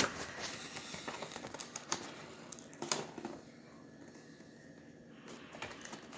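Scattered light clicks and crinkling of a box and its packaging being handled, quieter in the second half.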